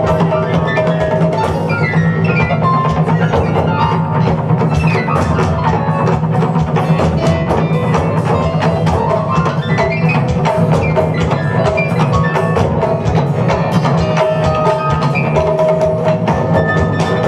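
Live taiko drumming with a funk band of keyboard, bass guitar and drum kit: dense, rapid drum strokes over a steady bass line, with melodic runs that climb and fall.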